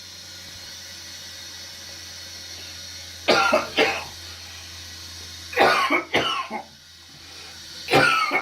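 A person coughing in three bouts of two or three sharp coughs each: about three seconds in, around six seconds, and at the end. The coughing is what forces out the infection draining through a dressed wound. A steady low hum runs underneath.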